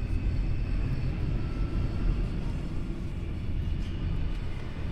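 Interior of a crowded Porto Metro light-rail car under way: a steady low rumble of the train running, with a faint high whine over it and passengers' voices faintly in the background.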